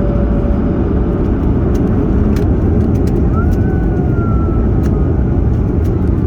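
Airbus A220's Pratt & Whitney PW1500G geared turbofans and air rush, heard inside the cabin as loud, steady noise. About three seconds in, a faint whistle rises and then slowly falls, and a few light clicks and rattles come through.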